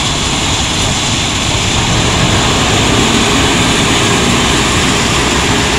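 Lonking wheel loader's diesel engine running steadily under load as the machine manoeuvres and raises its bucket.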